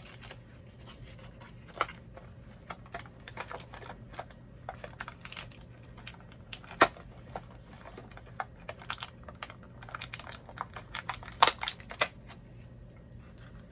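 A small toy accessory box and its packaging being opened and handled by hand: a run of irregular light clicks and crinkles, with a few sharper snaps about seven seconds in and again near the end.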